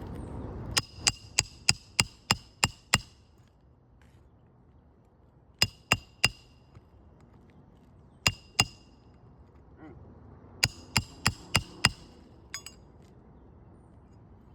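Roofing hammer striking the metal roof snake to drive roofing nails under a shingle. The sharp, ringing metallic strikes come in quick runs: eight in a row, then three, two and five.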